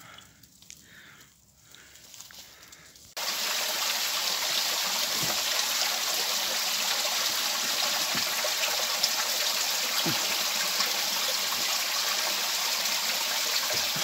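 Quiet for about the first three seconds, then the steady, even rush of a running stream cuts in abruptly and holds.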